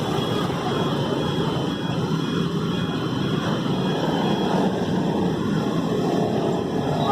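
Steady rumble of passing vehicles at a railway level crossing, with a faint high beep repeating about twice a second that stops a little past halfway.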